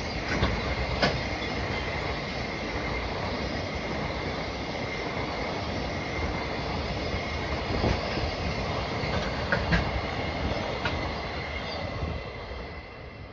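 Freight train of container flat wagons rolling past: a continuous rumble of steel wheels on rail, with a thin steady high tone, sharp clacks over the rail joints now and then, and a falling-off near the end as the last wagon goes by.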